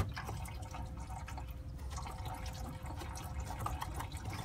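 Engine coolant running out of the radiator drain valve into a drain pan, a steady trickle with drips. A few small clicks, the sharpest right at the start, come from the plastic coolant reservoir being handled.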